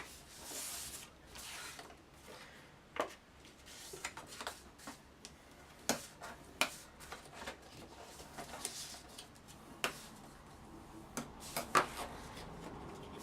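Kraft cardstock being scored along its fold lines by hand: two soft rubbing strokes of the scoring tool near the start, then scattered light clicks and taps as the card and tools are handled.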